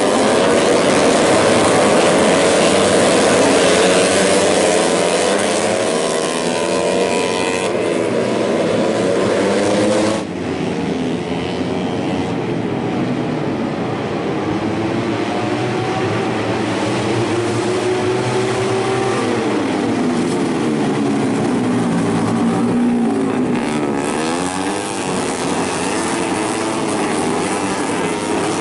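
Several tuned four-stroke underbone racing motorcycles of up to 150cc running hard, their engines rising and falling in pitch as they rev, shift and pass. About ten seconds in the sound changes abruptly and becomes slightly quieter.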